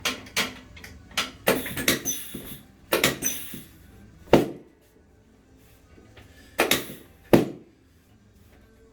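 Sharp knocks and thuds from a chiropractic adjustment on a treatment table, coming in clusters, with two single louder knocks a little over four seconds in and again about seven seconds in.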